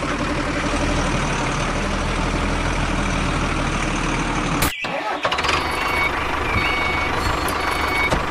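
An engine running steadily. It breaks off briefly about four and a half seconds in, then runs on with a thin high whine over it.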